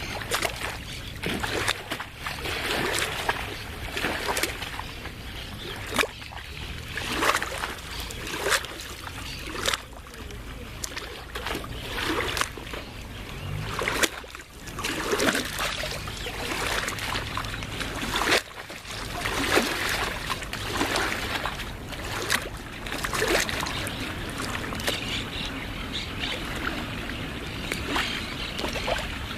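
Small waves on a lake lapping and splashing against the edge in irregular slaps over a constant wash of water.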